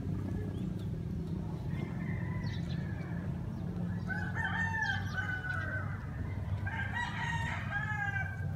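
Roosters crowing: one crow about four seconds in and another around seven seconds in, over a steady low hum.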